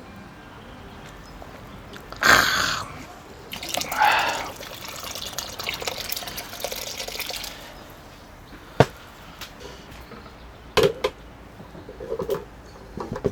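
Liquid being poured and splashing, in two strong bursts and then a weaker trickle, followed by a few sharp clicks and knocks.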